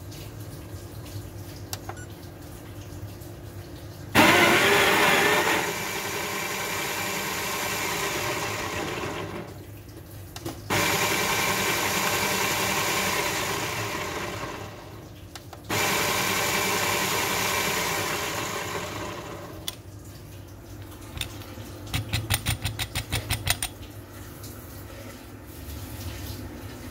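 Baratza Sette 270W conical burr grinder grinding coffee beans into a portafilter in three bursts of about four to five seconds each, each starting abruptly. Near the end comes a quick run of sharp clicks.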